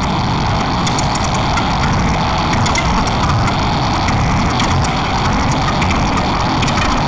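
Improvised avant-garde electronic score: a steady, dense noise texture with a low rumble and scattered crackling clicks, without a clear melody or beat.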